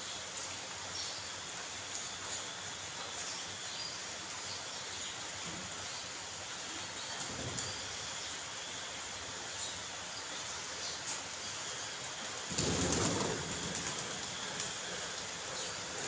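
Steady rain falling on puddles and wet paving, with faint bird chirps now and then. About twelve and a half seconds in, a louder rushing burst lasts about a second.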